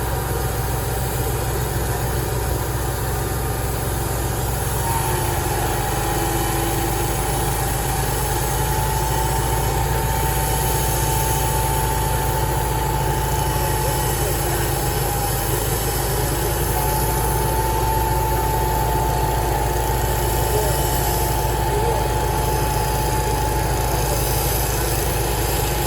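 Sawmill machinery running steadily: a constant engine drone, joined about five seconds in by a steady whine that bends slightly upward and then holds.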